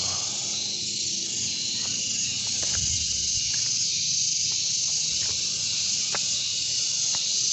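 A steady, high-pitched chorus of insects, an even hiss that does not let up, with a few faint clicks.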